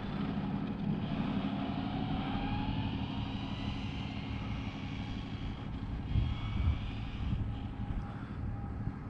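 Steady low drone of road traffic with wind buffeting the microphone; a faint whine rises in pitch about a second in.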